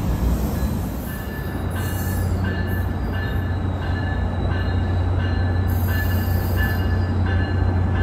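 Diesel passenger train rolling into a station with a steady low engine rumble, and a bell ringing in an even rhythm, a little under twice a second, that gets louder about two seconds in.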